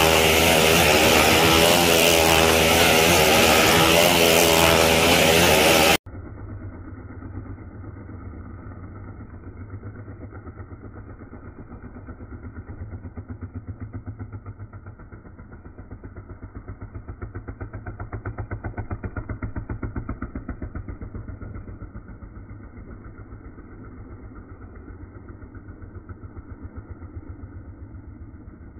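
Motorcycle engine racing around the vertical wooden wall of a well-of-death drum. It is very loud with a wavering pitch for the first six seconds, then cuts abruptly to a fainter, muffled engine with a rapid steady beat that swells and fades as the bike circles.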